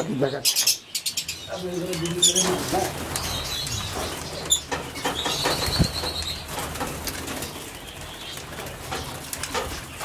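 Lovebirds in a colony room: a bird's wings flap in the first second, then short high chirps follow, clearest around four to five and a half seconds in.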